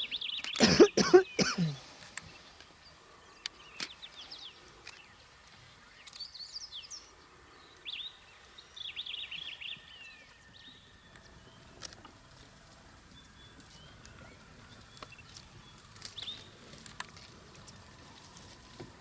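A short, loud animal call about a second in, followed by birds chirping on and off.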